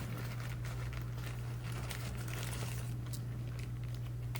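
Packaging rustling and crinkling in irregular bursts as items are lifted out of a product box, over a steady low hum.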